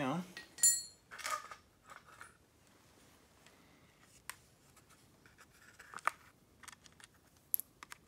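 Scattered light clicks, clinks and rattles as a plastic sprocket cover is fitted over a pole saw attachment's bar and chain, the sharpest a brief metallic ting about a second in.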